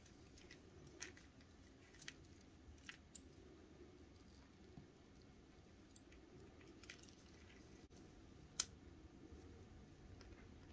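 Scattered small clicks and taps of cream plastic keychain-puzzle pieces being set down and handled in gloved fingers, with one sharper click about eight and a half seconds in, over near-silent room tone.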